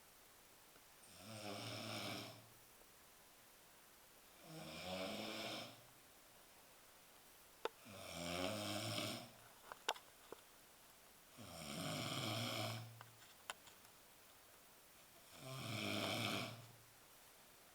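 Loud snoring: five snores, each a second or so long, about every three and a half seconds, with a few faint clicks between them.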